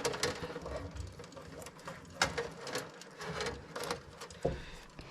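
Irregular light clicks and rustling as small objects are handled at close range.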